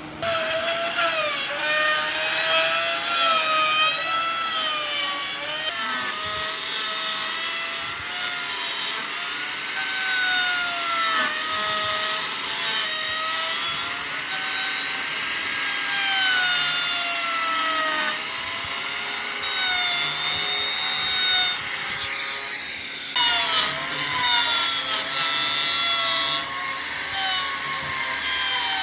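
Hand-held electric power tool working wood, its motor whine wavering up and down in pitch as the load changes.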